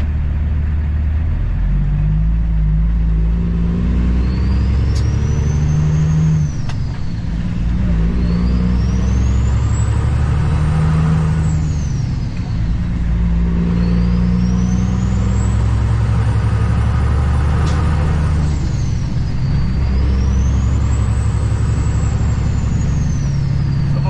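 Semi truck's diesel engine accelerating up through several gears, heard from inside the cab. The engine's pitch climbs in a few pulls with short breaks between them, and a high whistle rises and falls with each pull.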